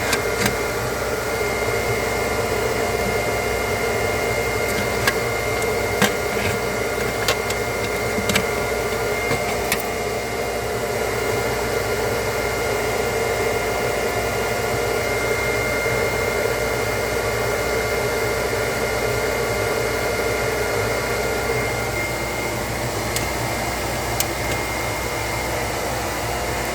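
Steady rushing, hissing air noise with a thin high whine running through it, and a few light clicks in the first ten seconds.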